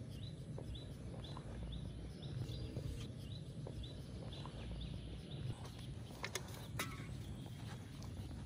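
Outdoor rural background: a short high chirp repeating about twice a second over a steady low rumble, with two sharp clicks about six and a half seconds in.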